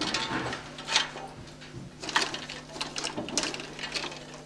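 35 mm film projector running: a steady motor hum under a mechanical clatter, with a few louder knocks about one and two seconds in.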